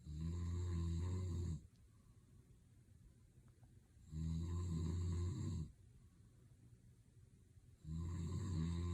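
A man snoring in his sleep: three long, low snores about four seconds apart, each lasting about a second and a half.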